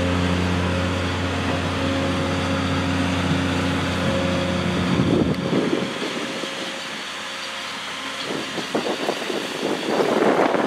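Rail grinder's diesel engines running as the machine rolls by: a steady engine hum for about the first five seconds, which then drops away, followed by a rushing noise that builds and gusts near the end.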